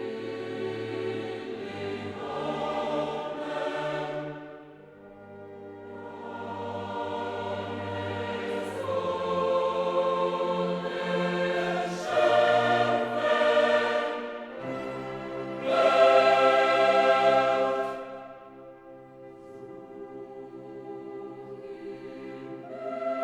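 Background choral music: a choir singing long, held phrases that swell and fade.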